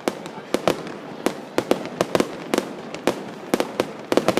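Fireworks exploding in quick, uneven succession: many sharp bangs, several a second, over a steady crackle.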